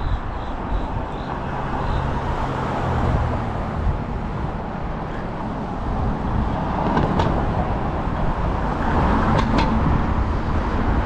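Steady wind and road rumble on a GoPro Hero9 action camera while riding a Segway Ninebot Max electric kick scooter along a street with car traffic. There are a few sharp knocks in the second half.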